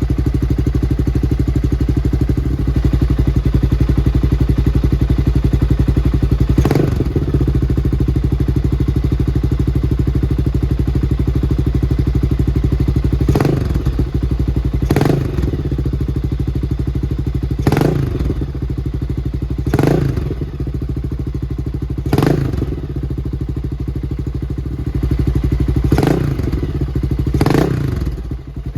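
1996 Honda XR600's single-cylinder four-stroke engine idling steadily, with about eight quick throttle blips that briefly raise the revs.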